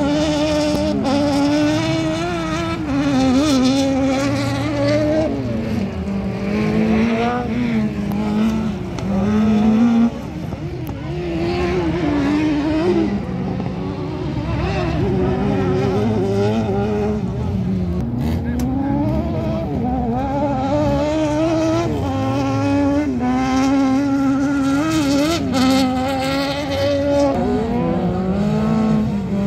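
Autocross race car engines at full throttle on a dirt track, revving up through the gears, the pitch climbing and then dropping at each shift or lift, over and over. The level drops suddenly about ten seconds in.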